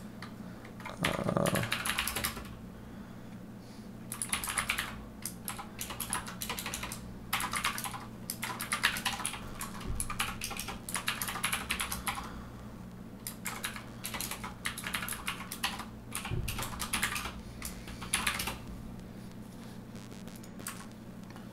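Computer keyboard typing in short bursts with pauses between, over a faint steady hum, with a soft low thump about a second in.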